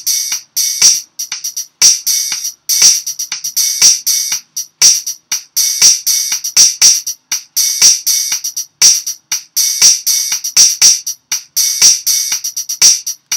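Programmed drum beat played back from BandLab's MIDI drum kit at 120 bpm: three layered drum parts in a steady, quantized rhythm, with the snare on beats two and four. Dense, evenly spaced crisp hits.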